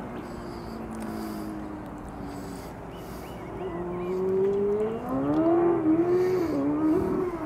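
A motor vehicle engine: its pitch sinks slowly at first, then rises and grows louder from about halfway, with a few quick dips and climbs as it accelerates.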